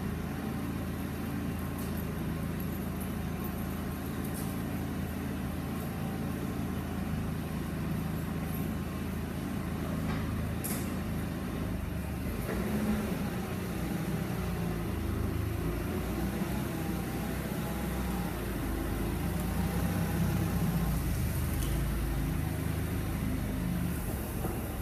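Propane-fuelled engine of a 2013 Cat 2C5000 forklift running steadily at idle, then from about halfway through rising and falling in pitch as the forklift is driven and manoeuvred.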